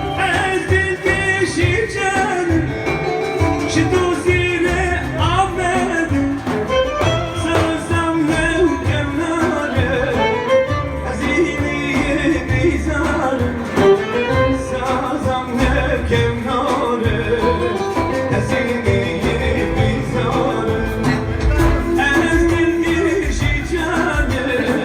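Turkish folk (türkü) music: a singing voice with a string melody over a steady pulsing bass beat.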